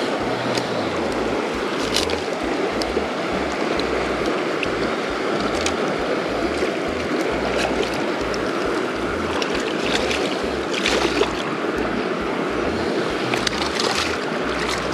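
Steady rush of river water at the bank, with splashes and crackling of dead sticks as a hooked fish thrashes in the shallows and is grabbed by hand; the splashing is busiest about ten seconds in and again near the end.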